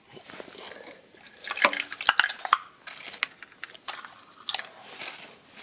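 Irregular clicks and rustling of plastic wiring-harness plugs and loose wires being handled and fitted to a car stereo, busiest about two seconds in.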